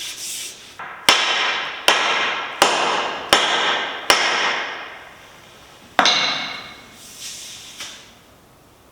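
Six blows struck on the butt end of a wooden shaft, driving the socket of a metal pruning chisel tight onto it. Five come about three quarters of a second apart, and a sixth follows after a pause, each with a ringing decay.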